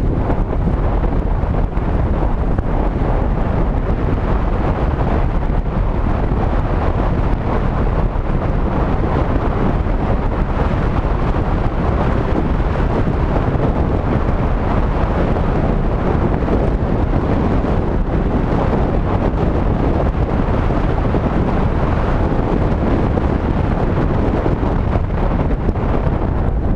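Steady rush of wind on a GoPro's microphone as it rides on a moving vehicle, with road and engine noise mixed in underneath.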